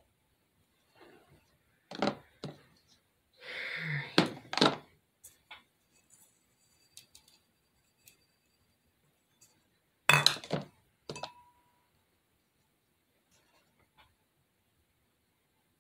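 Small glass jar being handled and set down on a tabletop: a few clinks and knocks, a short rustling scrape, and later another cluster of knocks, one leaving a brief glassy ring.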